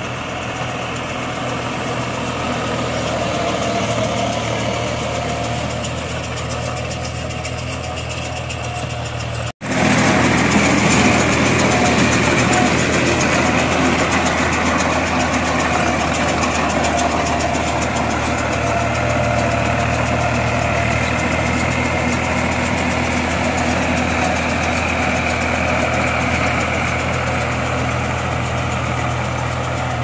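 Farm tractor engine running steadily, driving a small round straw baler. The sound drops out for an instant about ten seconds in and comes back louder.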